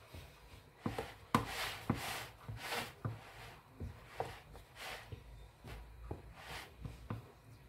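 A wooden spoon stirring and turning steamed couscous grains in a plastic bowl: irregular knocks of the spoon against the bowl and scraping rustles of the grains. The oiled couscous is being worked loose between steamings.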